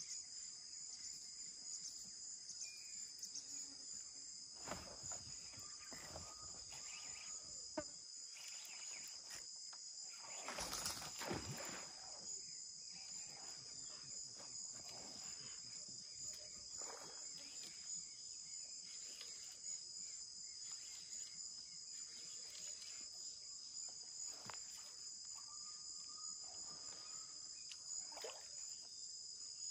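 Steady high-pitched chorus of insects such as crickets, with scattered short noises over it, the loudest a little over ten seconds in.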